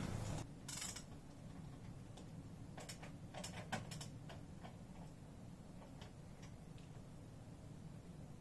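Faint, irregular small clicks and taps of a screwdriver and parts being handled on a small PC case, a cluster of them about three to four seconds in, over a low steady room hum.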